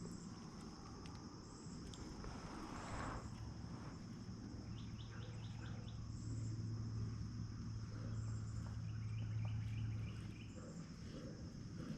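Crickets chirring in a steady high-pitched drone, with a faint low hum and a few light ticks over it.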